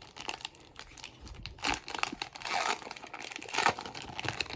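A trading-card pack's plastic wrapper being torn open and crinkled by hand, in a series of rustling bursts, the loudest in the second half.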